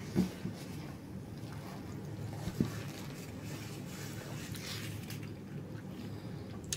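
A person quietly chewing a mouthful of freshly cooked meat, with soft mouth sounds and two short clicks.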